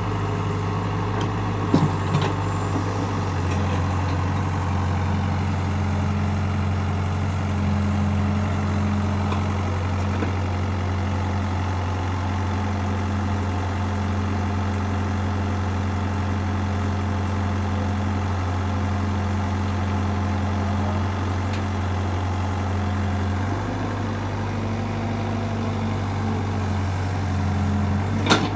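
Heavy machine's engine running steadily at a low, even pitch, its speed shifting slightly twice, with a sharp knock about two seconds in and another at the very end.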